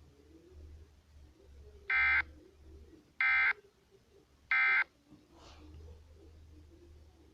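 Emergency Alert System end-of-message signal: three short bursts of SAME digital data tones, each about a third of a second long and spaced a little over a second apart, marking the end of the alert. A faint low hum lies underneath.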